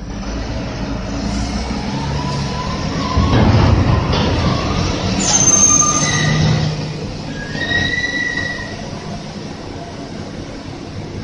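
Biomass grinding shredder running, shredding straw bales: a steady heavy machine noise that swells about three to six seconds in, with several drawn-out metallic squeals and whines over it.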